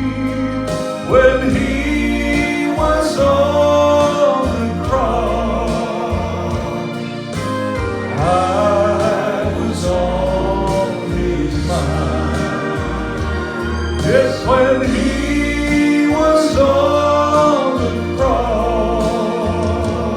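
Gospel song playing: melodic lines with vibrato over a steady bass accompaniment, with singing voices.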